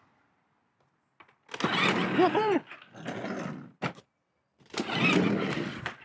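A person's high-pitched voice, heard in two short bursts about a second and a half in and again near the end, with a click between them.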